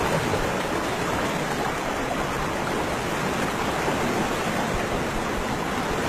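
Muddy floodwater rushing steadily down a riverbed in a flash flood.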